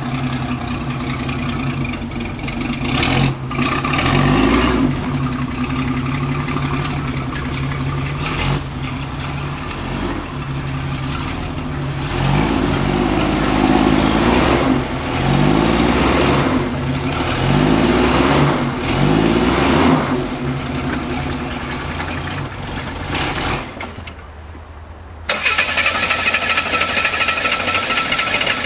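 Off-road Jeep engine working under load over rocks, revving up and dropping back again and again as the driver feeds throttle. Near the end it drops away briefly, then cuts abruptly to a steadier, higher-pitched engine note.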